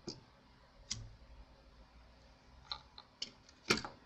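Light clicks and knocks from the heat-pipe cooling assembly of an Asus TUF FX505 gaming laptop being lifted off its motherboard and handled. There are about five separate clicks, and the loudest comes near the end.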